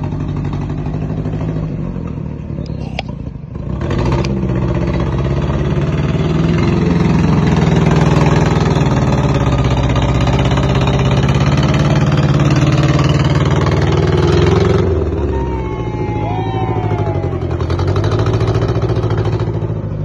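Engine of a homemade four-wheel-drive jerico ('girico') working hard as it pulls a load of passengers up a muddy track. The engine gets louder about four seconds in, holds steady, and eases off about three-quarters of the way through.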